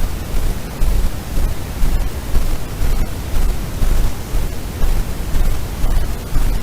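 Loud steady hiss with an uneven low rumble that swells and drops: wind buffeting the microphone.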